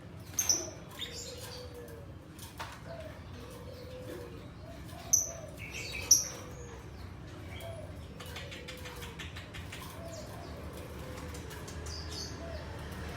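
Lovebird giving a few shrill, sharp chirps, the loudest about half a second, five and six seconds in. Beneath them a low call repeats about once a second, and a run of quick clicks comes midway.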